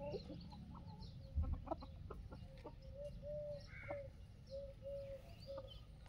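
Desi chickens clucking: a run of short, low clucks in the second half, with a few brief clicks and a low thump about a second and a half in.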